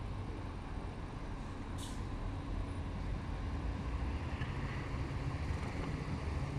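Road traffic: a steady low rumble of nearby cars, with one short hiss about two seconds in.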